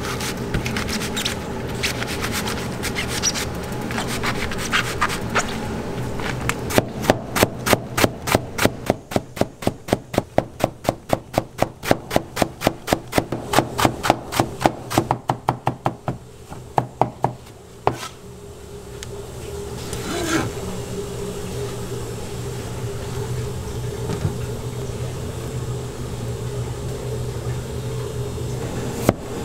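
Chinese cleaver slicing large green onion stalks on a plastic cutting board: a long run of rapid, even chopping strokes, several a second, that stops about two-thirds of the way through. Quieter scraping and knocks follow as the sliced onion is gathered up, over a steady low hum.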